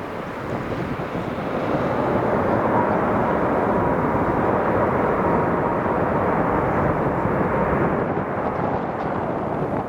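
Jet airliner passing low overhead. Its engine noise swells over the first couple of seconds, holds with a faint steady whine through the middle, and eases off near the end, with wind buffeting the microphone.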